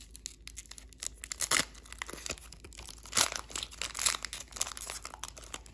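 A 2020-21 Panini NBA Player of the Day foil card pack being torn open by hand, the foil wrapper crinkling in irregular crackles with louder rips about a second and a half in and again about three seconds in.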